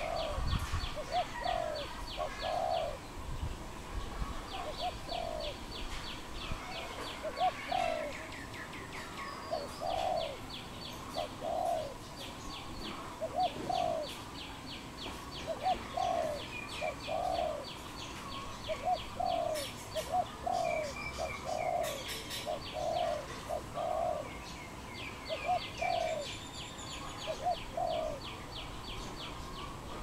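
Spotted doves cooing: short groups of two or three soft coos, repeated every second or two. Behind them, a rapid high ticking trill comes and goes in short bouts.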